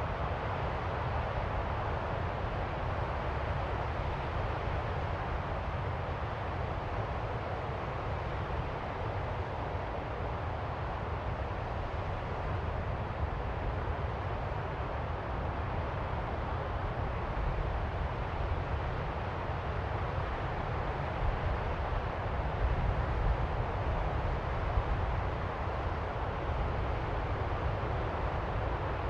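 Distant ocean waves: a steady wash of surf noise with a low rumble underneath, swelling a little about three quarters of the way through.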